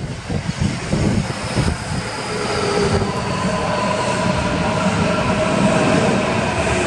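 Kintetsu 7020 series electric train running into an underground station platform and braking, its cars rumbling past. From about two seconds in, several steady whining tones build, with a high one slowly falling in pitch as the train slows.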